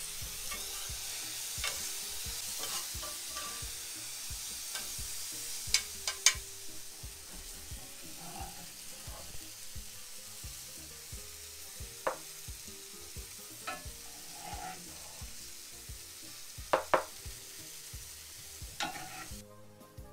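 Vegetables and fish sizzling in oil in two frying pans on a hot cast-iron stove top, a steady hiss that eases after the first few seconds. Several sharp clinks and knocks of utensils against the pans are scattered through it.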